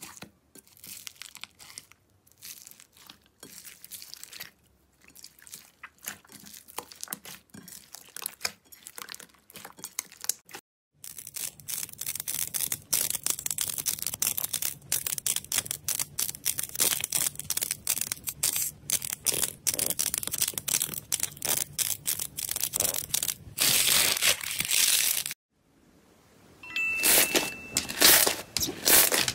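Hands squishing slime, with close crackling and popping. At first it is foam beads popping in pink floam slime. From about eleven seconds in, a denser, louder crackling comes as blue clay-like slime balls are squeezed and crushed. Near the end there are crinkly pops as pink slime is stretched and pulled apart.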